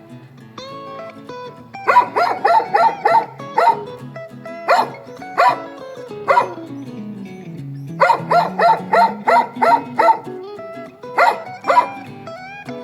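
A dog barking repeatedly in quick runs of several barks, over background music with guitar.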